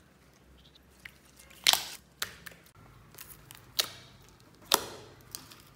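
Glossy slime being squeezed and pressed by hand, giving a handful of short, sharp wet pops as air pockets burst. The two loudest come about a second and a half in and just before five seconds.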